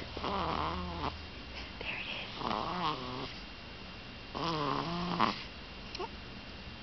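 A one-month-old baby snoring: three snores about two seconds apart, each lasting about a second with a wavering pitch.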